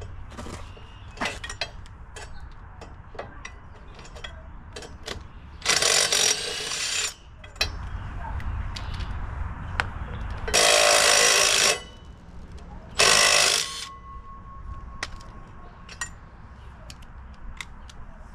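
A cordless power tool with a socket run in three bursts of about a second each, the first about six seconds in, spinning the lug nuts off a Ford Model A front wheel. Light metallic clicks come and go between the bursts.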